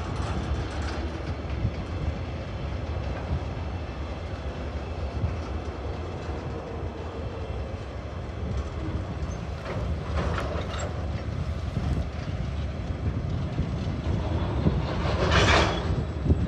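Tasrail freight train's wagons rolling steadily across a rail overpass bridge, a continuous low rumble. A short burst of louder hiss comes near the end.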